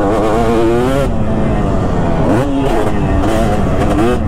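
2005 Kawasaki KX250 single-cylinder two-stroke motocross engine revving hard under changing throttle, its pitch wavering up and down. A little past halfway the revs drop briefly and then climb again.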